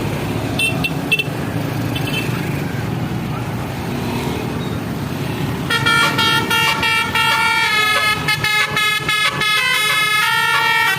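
Bus telolet horn (Basuri multi-trumpet horn) playing a stepping multi-note melody from about six seconds in, after a few short high toots, over a steady engine and traffic rumble.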